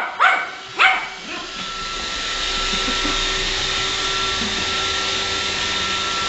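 A Yorkshire terrier barks three sharp times in the first second, then a Roomba robot vacuum runs steadily with a whirring hum.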